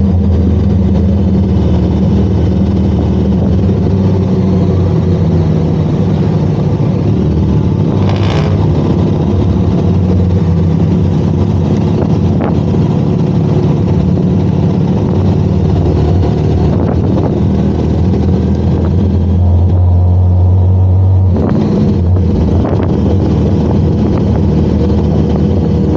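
Benelli TRK 502 X motorcycle's parallel-twin engine running steadily while riding. Its note shifts about three-quarters of the way through, and there is a brief rushing noise about eight seconds in.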